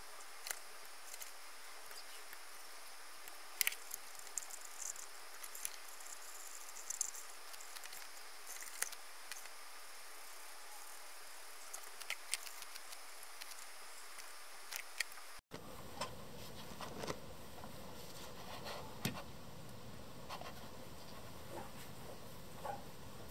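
Scattered light clicks and taps from a fine paintbrush and fingers handling a plastic 1/35 scale tank model, over a steady hiss.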